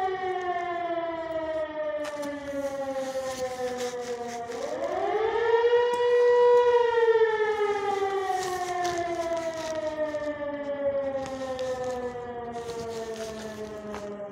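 Air-raid siren wailing during an air-raid alert. Its pitch slowly falls, glides back up about four and a half seconds in, holds briefly, then falls slowly again, with a second, lower tone falling alongside.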